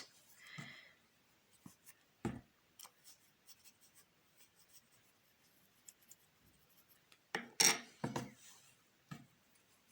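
Hands pushing stuffing into a small crocheted toy body: scattered soft rustles and rubbing of fibre against yarn, with a louder spell of rustling about seven to eight seconds in.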